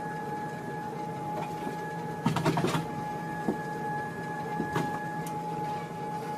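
A steady machine hum with a constant high tone, broken by a short cluster of clicks and rattles a little over two seconds in and a few single clicks after.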